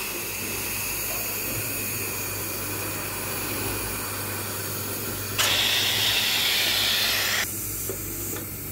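Compressed air hissing steadily from the jets of a pneumatic air gauge (combined air ring and plug gauge) as a component is seated in it. About five and a half seconds in the hiss suddenly gets louder, then drops back abruptly about two seconds later, over a faint low hum.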